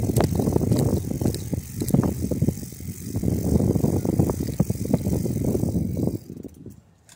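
Bicycle rolling along a paved trail, heard from a handlebar-mounted camera: a rough rumble with many small rattling clicks. The noise drops away sharply about six seconds in.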